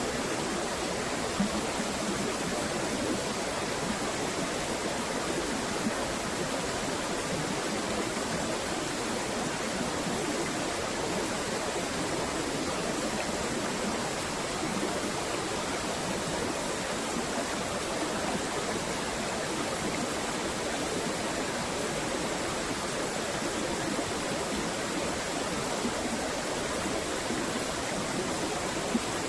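Steady rushing of flowing water, an even unbroken noise with a few faint ticks.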